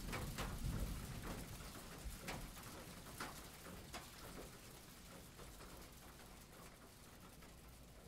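Rain falling, an even hiss with scattered drips and ticks, growing steadily quieter.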